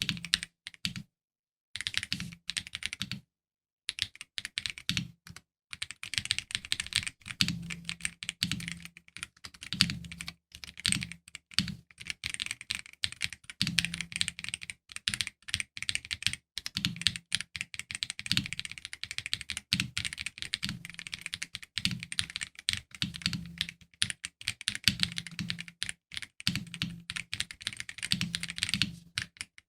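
Akko MOD007 v2 mechanical keyboard with Akko Red linear switches being typed on: a fast, continuous run of keystrokes, each with a sharp clack and a low thock, with two short pauses in the first few seconds.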